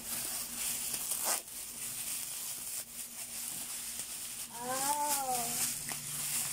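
Clear plastic wrapping crinkling and rustling as hands pull and tear at it, with a few sharper crackles. About five seconds in, a child gives a short wordless call that rises and falls in pitch.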